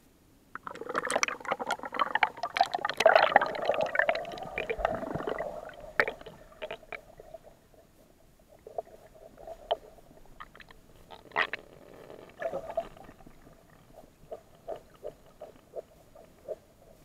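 Lake water splashing and bubbling around a camera as it goes under about half a second in, loudest for the first few seconds. Then muffled underwater gurgling with scattered clicks and knocks.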